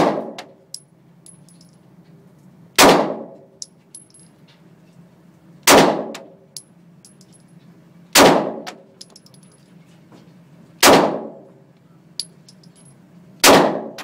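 Six 9mm pistol shots in slow, deliberate fire, one about every two and a half to three seconds, each ringing on in the echoing concrete indoor range. Faint light clicks come between the shots.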